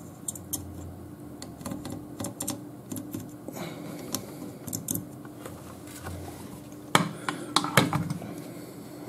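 Light scratchy ticks of a soldering iron's solder-reservoir tip being drag-soldered along the pins of a surface-mount chip. About seven seconds in, several louder clicks and knocks as the circuit board in a metal helping-hands clamp is handled.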